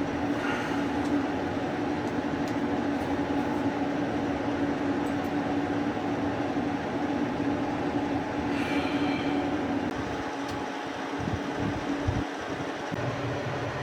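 Steady mechanical rumble with a strong low hum, like a vehicle in motion. A brief cluster of higher squealing tones comes about nine seconds in, and the low rumble turns uneven near the end.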